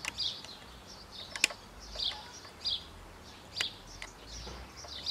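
Three sharp metal clicks from long-nose pliers working the pad pin out of a motorcycle rear brake caliper, the loudest about a second and a half in, over a small bird chirping again and again.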